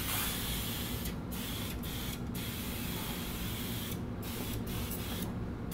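Sprayer hissing as gold colour stain is sprayed onto a concrete floor, the hiss breaking off briefly several times, with a longer break near the end.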